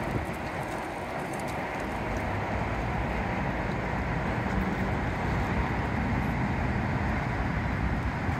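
Steady outdoor rumble and hiss of distant road traffic, with wind buffeting the microphone.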